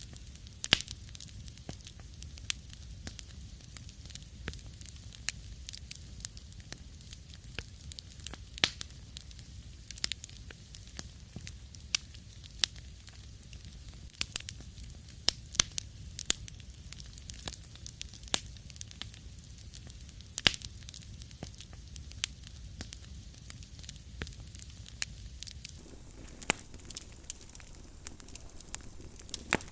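Wood fire crackling in a fireplace: irregular sharp pops and snaps over a low, steady rumble of the burning logs.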